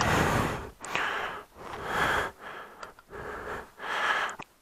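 A person breathing close to the microphone: a run of about six quick breaths at an even pace.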